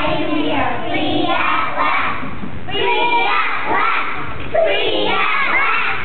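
A group of young children shouting together, many voices at once.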